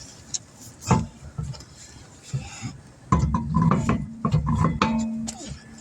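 Wheel being fitted back onto the hub: clanks and knocks, a sharp knock about a second in, then a power tool running in short bursts from about halfway, spinning the lug nuts onto the studs.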